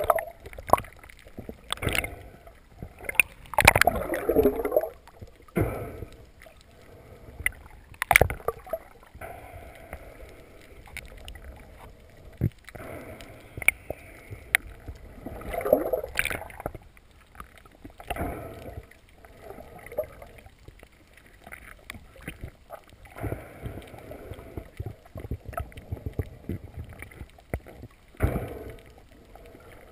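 Underwater sound picked up through a camera housing: muffled swooshes of water as the diver moves, swelling and fading several times, with scattered sharp clicks and knocks.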